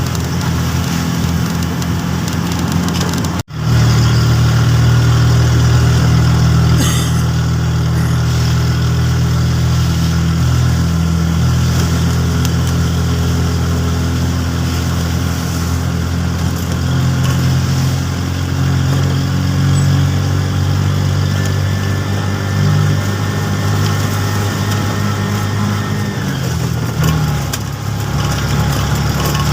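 An engine running steadily, with a low, even pitch that shifts briefly near the end. It cuts out for an instant a few seconds in.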